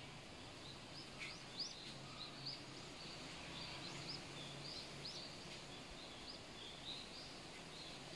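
Faint outdoor ambience with small birds chirping, short high rising chirps about once or twice a second, over a low steady hum.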